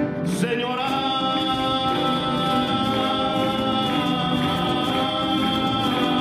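A male singer holds one long sung note over a live band with violins and guitar; the note slides up into place about a second in and is then held steady.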